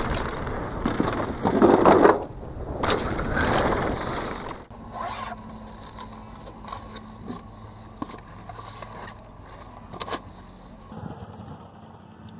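Downhill mountain bike descending a dirt trail: wind on the microphone with tyre and bike rattle noise, loudest about two seconds in. It cuts off suddenly about four and a half seconds in to quieter rustling of a cooler bag and a few light clicks over a faint steady hum.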